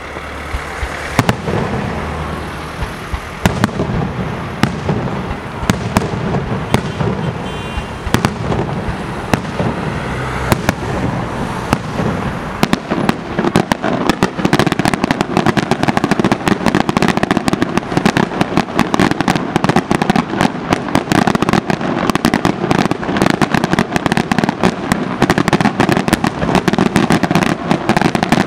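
Aerial fireworks shells bursting: scattered sharp bangs at first, building from about halfway into a dense, continuous volley of rapid reports and crackling.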